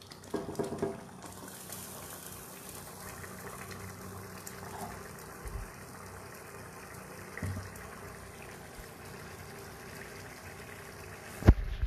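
Thick chicken and chana dal simmering in a kadai on a gas stove, a steady bubbling hiss. A sharp loud knock comes near the end.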